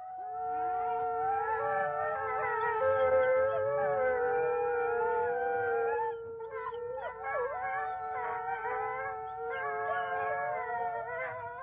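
Wolves howling in chorus: several long, overlapping howls at different pitches, one held steady while the others rise and fall around it.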